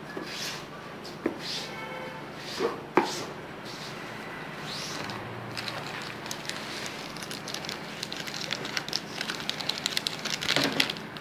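Plastic snack wrappers crinkling and crackling as they are handled, the crackle getting denser and louder toward the end. Two sharp clicks, about a second in and about three seconds in.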